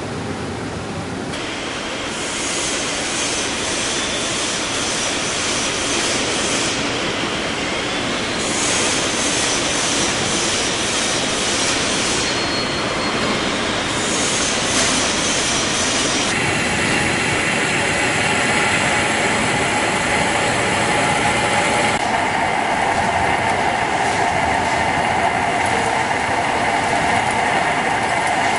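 Heavy metal-working machinery running: a steady, loud grinding noise with high screeching tones, changing abruptly several times.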